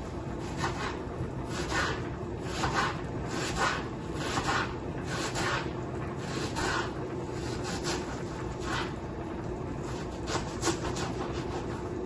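Knife slicing through an onion and striking a cutting board, roughly one rasping cut a second at an uneven pace, over a steady faint hum.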